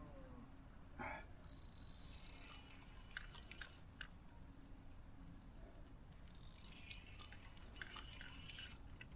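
Faint rapid clicking from a fishing reel in two spells of two to three seconds each, the first starting about a second and a half in and the second about six seconds in, as a barbel is played on the rod.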